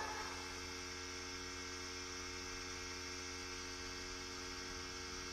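Steady electrical mains hum: a constant low buzz made of several evenly spaced tones, unchanging throughout.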